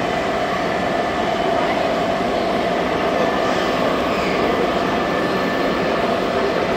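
Model freight train rolling past on the layout, with a steady rumble of wheels on track, over the murmur of an exhibition-hall crowd.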